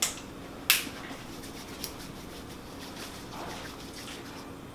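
Hand sanitizer being used: two short sharp sounds near the start, the second louder, as it is dispensed, then faint soft rubbing of the hands working it in, over a faint steady hum.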